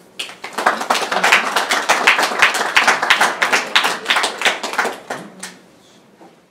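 Small audience applauding, the individual claps distinct, dying away about five seconds in.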